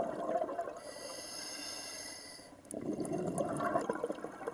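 Scuba diver breathing through a regulator underwater: a steady hiss of an inhale about a second in, then a burst of exhaled bubbles gurgling just under three seconds in.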